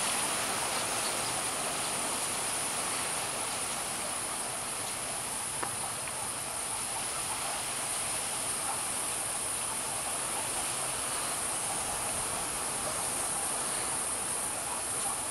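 Steady high-pitched insect drone, unbroken, over an even background hiss.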